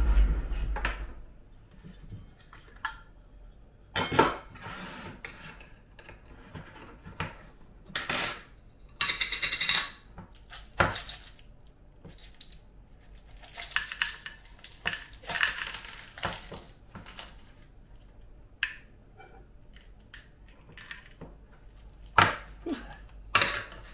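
Intermittent metallic clinks, taps and scrapes as a brass carbide lamp is taken apart and a metal tin of calcium carbide lumps is opened and handled on a wooden desk. It begins with a low thump, and a few denser rattling scrapes come about eight to ten seconds in.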